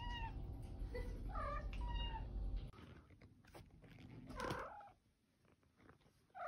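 Calico cat meowing three short 'okay'-like meows in the first two and a half seconds. After a pause comes a short rough call, the cat's entrance noise, about four and a half seconds in, and a short 'hi'-like meow at the very end.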